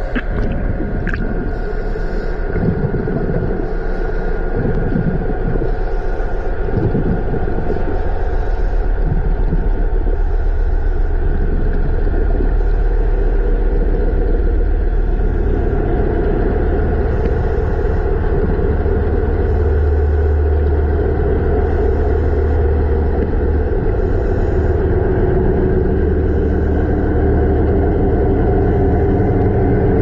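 Steady low rumble heard underwater, with a faint hiss that recurs about every second and a half.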